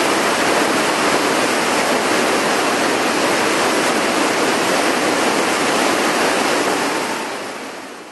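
Whitewater rapids rushing in a loud, steady roar of churning water, fading out near the end.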